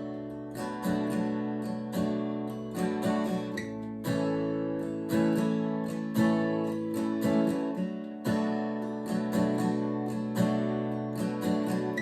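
Martin acoustic guitar strummed in a steady rhythm, full chords ringing between strokes, with no singing over it.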